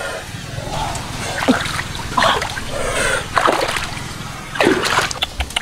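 Water splashing and sloshing in a series of irregular splashes.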